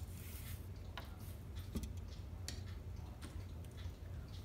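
Light clicks and taps at uneven intervals from small tools and material being handled on a workbench, with a short scratchy rustle at the start, over a steady low hum.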